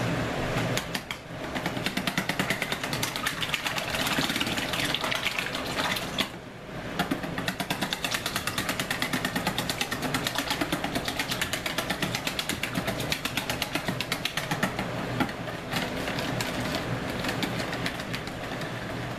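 Metal wire whisk beating barbecue sauce in a plastic bowl: a rapid, steady clatter of the wires against the bowl's sides, breaking off briefly about a second in and again around six seconds in.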